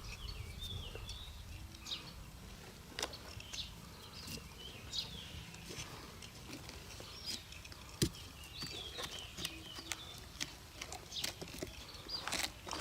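Outdoor ambience: short, high chirping calls from birds, scattered sharp clicks and taps, and a low rumble over the first second or so.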